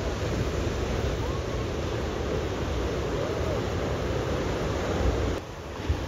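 Ocean surf washing steadily onto a rocky shore, with wind buffeting the microphone. The sound drops abruptly in level about five seconds in.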